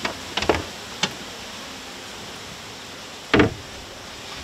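A boat's deck hatch door being opened over the bilge: a few light clicks in the first second, then one louder knock a little past three seconds in.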